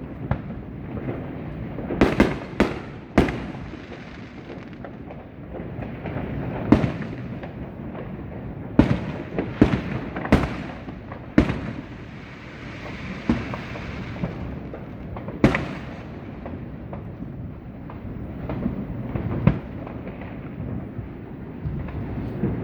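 Neighbourhood New Year fireworks and firecrackers going off all around: a constant rumble of distant pops with sharp individual bangs every second or two, some of them close and loud. A hiss is heard for a couple of seconds about halfway through.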